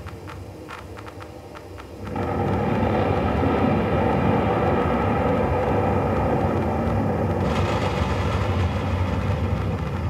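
Synthesized rainforest-storm soundscape: sparse clicking drips, then about two seconds in a sudden, loud, steady storm rumble swells in, with a brighter rain-like hiss joining it about seven and a half seconds in.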